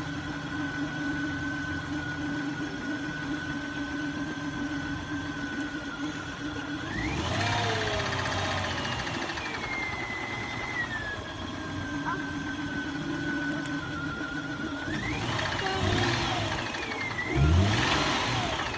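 Nissan Xterra engine idling with a high, steady whine, then revved three times and let fall back to idle. The owner hears a knocking he can't identify and says it is not heard at low revs.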